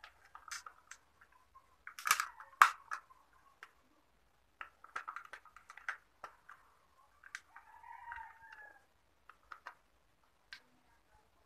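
Hard plastic stand-fan parts clicking and knocking as they are handled and fitted together, the loudest knocks about two seconds in. A rooster crows once in the background about eight seconds in.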